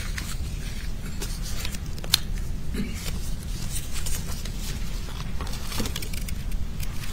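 Sheets of paper being leafed through and shuffled at a lectern, with scattered small rustles and a sharper click about two seconds in, over a steady low room hum.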